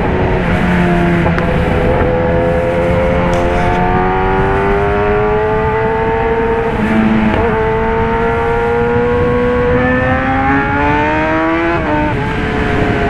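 Kawasaki Ninja ZX-10R inline-four with an SC-Project CRT exhaust pulling hard under acceleration, its pitch climbing steadily. Quick upshifts break the note, dropping the pitch abruptly about a second in and again near the end.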